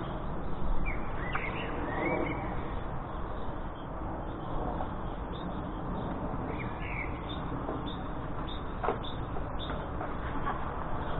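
Scattered short, harsh calls from jackdaws and gulls feeding together, a cluster about a second in and another about two-thirds of the way through, over a steady low rumble.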